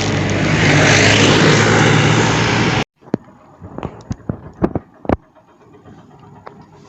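A motor vehicle passing close by on the road: loud engine and tyre noise over a steady low hum that cuts off suddenly about three seconds in. After that it is quiet, with a few sharp taps.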